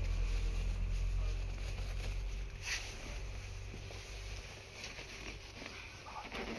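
Fabric rustling and handling noise from hands working a cloth item, over a low rumble in the first half, with a sharp click about two and a half seconds in and a few lighter clicks near the end.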